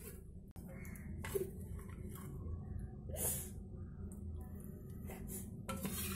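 A plastic spoon scooping curry from a metal pan into a glass bowl: a few faint scrapes and taps over a low steady hum.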